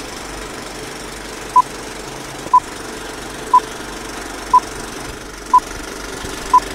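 Film countdown leader sound effect: a short high beep once a second, six in all, over a steady mechanical rattle like an old film projector running.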